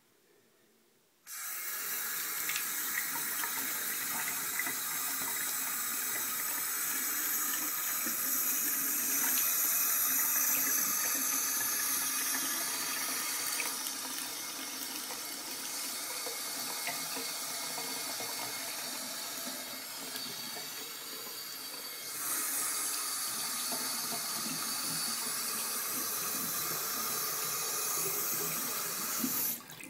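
Water pouring from a glass waterfall-spout basin faucet into a sink. It is turned on abruptly about a second in and runs steadily, gets louder about three-quarters of the way through, and is shut off abruptly at the very end.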